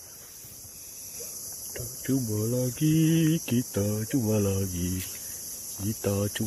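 A man singing a short tune in held notes from about two seconds in, a song meant to call the fish, over a steady high-pitched drone of insects.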